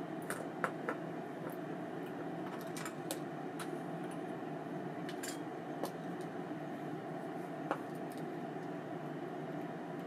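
Scattered light metallic clicks and clinks from small metal parts of an ABU Ambassadeur 2500C baitcasting reel being handled, with a cluster near the start and single ones later. A steady low hum runs underneath.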